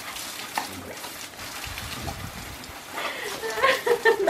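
Garden hose spray pattering on a wet brick patio, a steady rain-like hiss. Near the end a short pitched cry rises above it.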